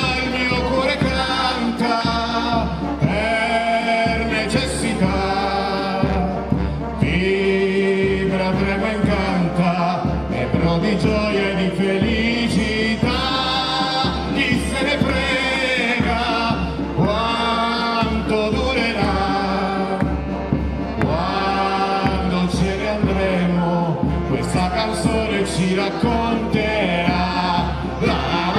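Live music: a group of voices singing together in chorus over band accompaniment, continuous throughout.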